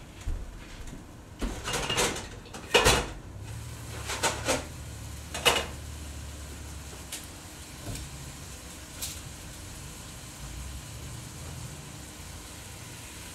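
A few household knocks and clatters in the first six seconds, the loudest about three seconds in, then a steady low hum.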